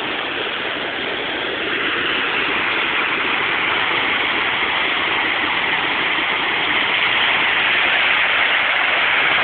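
Fast floodwater of a swollen creek rushing over and around a bridge: a steady rush of water that grows a little louder about two seconds in.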